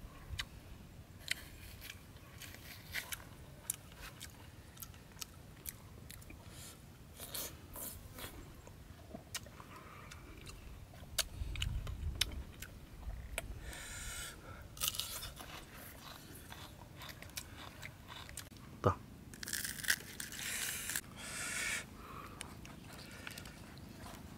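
A person eating close to the microphone: chewing and crunching food, with many small sharp clicks and scrapes throughout and a few short, louder crunchy bursts in the second half.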